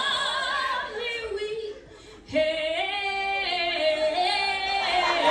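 A woman singing solo into a microphone with no instruments, holding long wavering notes. She breaks off briefly about two seconds in, then carries on with more sustained notes.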